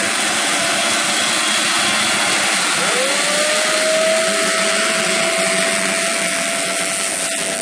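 A pack of small underbone (bebek) motorcycle engines revving hard at full throttle off a race start. About three seconds in, one engine's note climbs and then holds steady and high over the rest.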